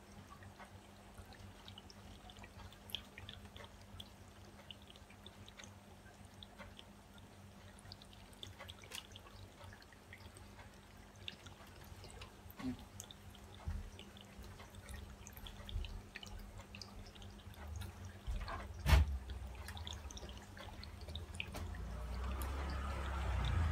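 Acrylic paint poured from a small plastic cup, heard as faint scattered drips and small ticks over a low steady hum. About nineteen seconds in, a single sharp knock as the plastic cup is set down on the table.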